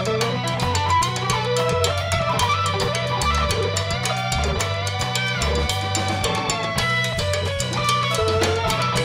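A live rock band plays with a steady beat: electric guitar over a drum kit, with congas and an electric keyboard.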